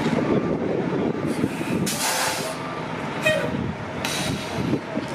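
Nova RTS transit bus running as it pulls slowly across a yard, its engine giving a steady rumble. Short hisses come about two seconds in and again about four seconds in.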